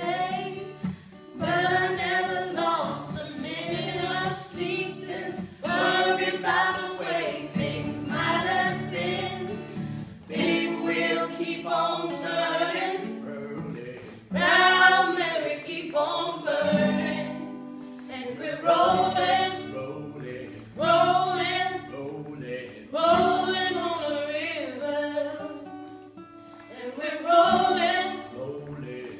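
A small group of voices singing a song together, accompanied by an acoustic guitar, in phrases with short breaks between them.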